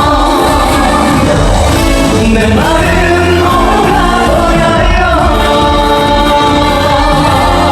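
Live upbeat trot song played loud through a stage sound system: a female singer's voice over an amplified backing track with a steady beat.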